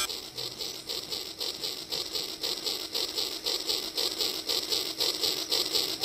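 Battery-powered toy train running on plastic track: a rapid, even mechanical clatter of about five ticks a second from its motor and wheels.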